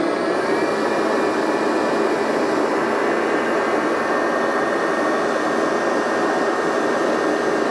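Electric stand mixer's motor running steadily with an even whine as it kneads yeast doughnut dough, working the first half of the flour into the liquids.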